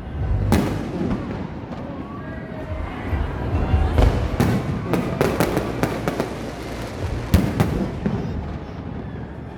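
Fireworks display: a series of sharp bangs and crackling reports over a low rumble, the bangs coming thickest from about four seconds in.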